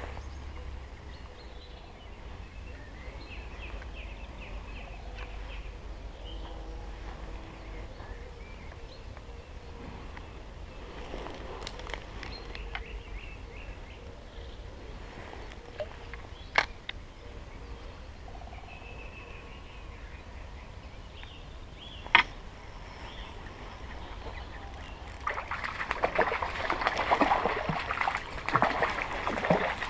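Trout stream running in the background with a low rumble, two sharp clicks partway through, and a louder stretch of noise in the last few seconds.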